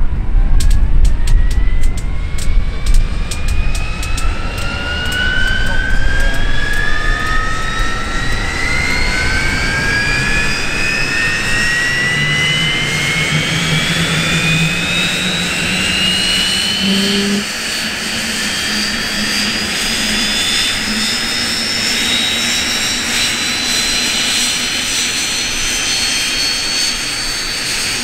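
Jet Provost's Armstrong Siddeley Viper turbojet starting up: a whine that climbs steadily in pitch as the engine spools up. Rapid ticking is heard over the first few seconds.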